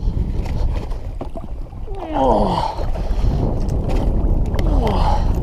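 Wind buffeting the microphone on a kayak out on open water, a dense low rumble. About two seconds in and again near five seconds, a short sound slides down in pitch.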